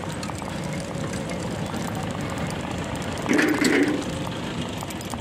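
Steady rumble and wind noise from riding a bicycle over interlocking paving stones, with a brief louder sound about three and a half seconds in.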